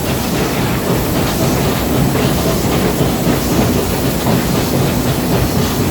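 Steam locomotive on the move, heard from its footplate: a loud, steady clatter of the running engine and the wheels on the rails.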